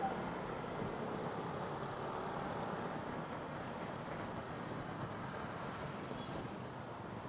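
Steady running noise of a motorcycle riding through town traffic, heard on board the moving bike: an even rush of engine and road noise that holds level throughout.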